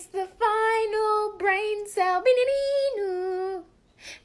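A high voice singing a few held notes of a simple melody, unaccompanied.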